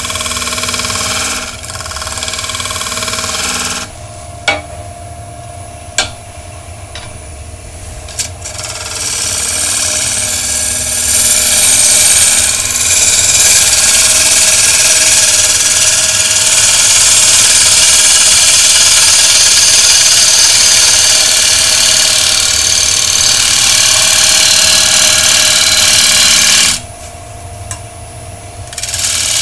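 Wood lathe spinning a bowl while a blunt turning tool, dulled by silica in the wood, cuts into it: a few light taps, then from about nine seconds in a loud, continuous rough cutting noise that lasts some eighteen seconds, stops briefly near the end and starts again.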